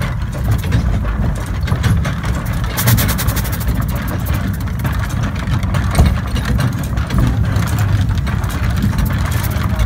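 Steam Elephant early-style steam locomotive running along the track, heard from its footplate: a steady heavy rumble and clatter of the engine and its gearing. About three seconds in there is a brief burst of hissing steam.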